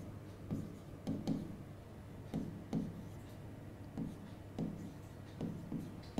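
Stylus tapping and scratching on a pen tablet during handwriting: soft, irregular taps about twice a second.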